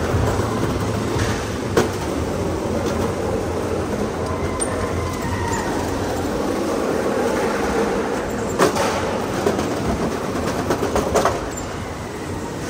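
Drift karts running on a smooth concrete floor in a large, echoing hall: a steady rumble and whir of motors and small wheels rolling, with a few sharp knocks.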